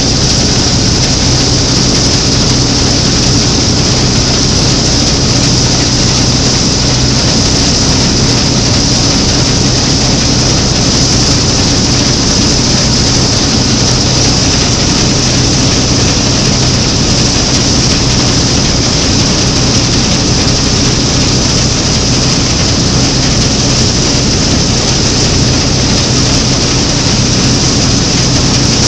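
Claas Matador Standard combine harvester running steadily while cutting and threshing triticale, heard up close from its open driver's platform. The sound is a loud, constant engine hum with a steady hiss over it, unchanging throughout.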